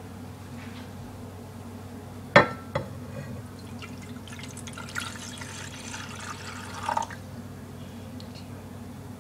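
A sharp knock and a lighter one about two and a half seconds in, then water poured from a glass measuring cup into a cooking pan for about three seconds, ending in a short louder splash.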